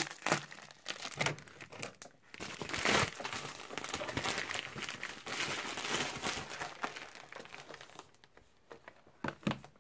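Plastic packaging crinkling and rustling as a mailed parcel is pulled open by hand. The crinkling dies down about eight seconds in, leaving a few light clicks.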